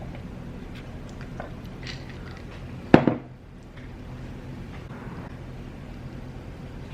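Quiet eating sounds: small clicks and mouth noises of chewing food. About three seconds in comes one short, sharp, loud sound.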